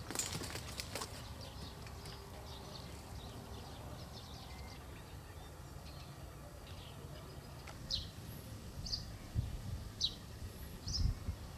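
Outdoor ambience of wind rumbling on the microphone. Short high bird chirps come several times in the second half, and a few clicks sound near the start.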